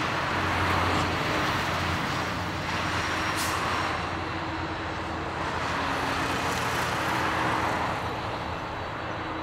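Jet aircraft engines running steadily at low power: a continuous rush with a faint low hum underneath.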